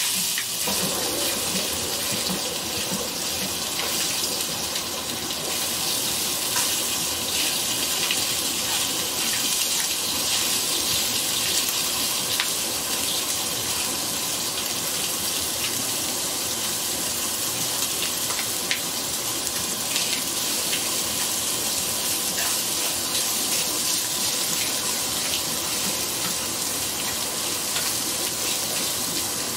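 Italian sausage meat sizzling steadily as it browns in a frying pan, with occasional light clicks of a utensil against the pan as the meat is broken up.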